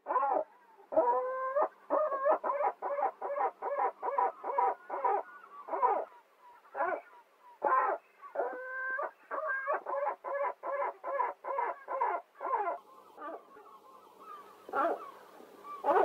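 Gull calling: twice a drawn-out note followed by a fast run of short calls, about three a second, with single calls scattered between.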